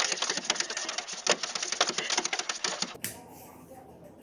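Rapid, irregular clicking and tapping, dense and busy, which stops abruptly about three seconds in, leaving only faint sound.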